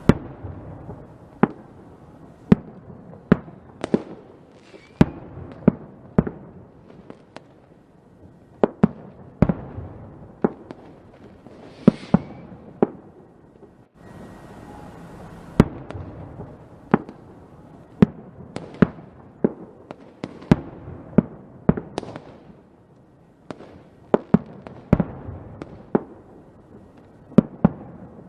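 Fireworks going off: a rapid, irregular string of sharp bangs, about one or two a second, over a continuous low rumble of more distant bursts.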